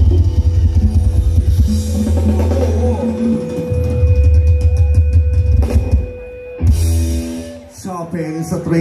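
Live band playing a Thai dance song through a loud PA: heavy bass and drum beat under a long held keyboard note. The music breaks off about six seconds in, followed by one short final chord about a second later.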